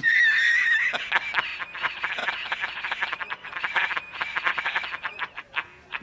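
A film's soundtrack slowed and scrubbed in a time-stretching app. A frozen, buzzing tone is held for about a second. Then a rapid stream of clicks and crackles follows, thinning to separate ticks near the end.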